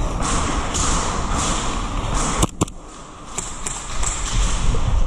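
Footsteps and gear rustle of an airsoft player running across a concrete warehouse floor, picked up close by his helmet camera, with two sharp clicks about two and a half seconds in.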